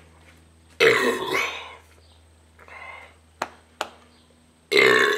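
A man belching loudly twice, burps brought up by gulped carbonated beer: the first lasts about a second, the second comes near the end. A fainter sound and two sharp clicks fall in between.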